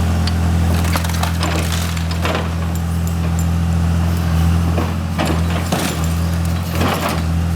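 O&K RH6 hydraulic excavator's diesel engine running steadily, with scattered sharp cracks and crunches of a small car's body being crushed under its bucket.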